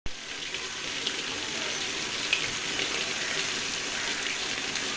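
Water gushing from the discharge pipe of a newly drilled water borehole, splashing steadily into a steel bowl and onto wet mud.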